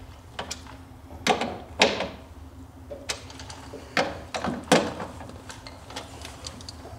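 Socket ratchet tightening the mounting bolts of a snowmobile's rear bumper: a series of sharp, irregular clicks and metal knocks as the handle is worked.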